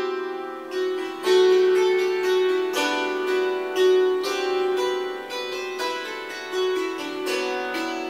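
Instrumental background music: a string instrument playing a slow melody, each note starting sharply and ringing on.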